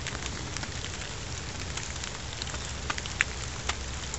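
Light rain pattering: irregular sharp drop ticks, a few a second, over a steady hiss, with a steady low rumble underneath.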